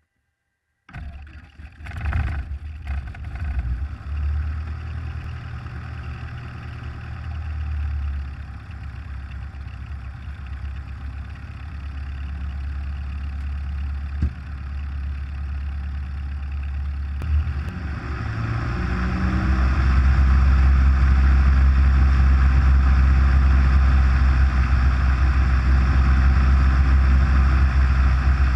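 Cessna 172's piston engine and propeller heard from inside the cockpit: the engine catches and runs unevenly for a moment, then settles into a steady idle. About two-thirds of the way through, the power comes up smoothly to a louder, steady higher rpm while the aircraft stays in place, as for a pre-takeoff run-up.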